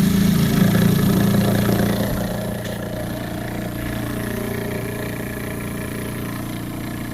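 Sap-line vacuum pump running with a steady motor drone, a little louder for the first two seconds. It is pulling about 15 inches of vacuum on the line and working well.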